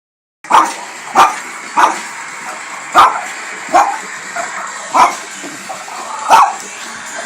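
A dog barking at a television, seven loud, sharp barks at uneven intervals.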